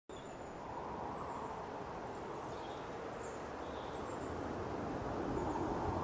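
Outdoor ambience: a steady rushing noise that swells slightly, with faint, high bird chirps now and then.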